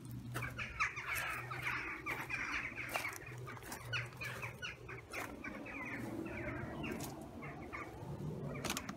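Birds calling: a rapid chatter of many short, downward-sliding notes, with a steady low hum beneath and a few sharp clicks.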